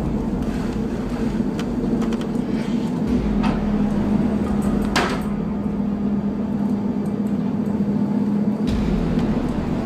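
A boat's engine droning at a steady pitch, with scattered knocks and rattles; the sharpest knock comes about five seconds in.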